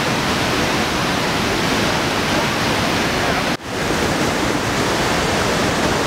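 Iguazu Falls: a steady, loud roar of a huge volume of falling water, even across low and high pitches. It dips sharply for a moment about three and a half seconds in, then comes back at full strength.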